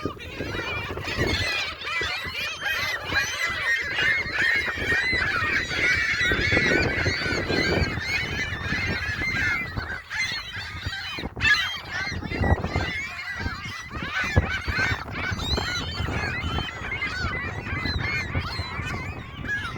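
A flock of gulls calling over one another continuously, many short overlapping cries with no pause, as they crowd in to be fed.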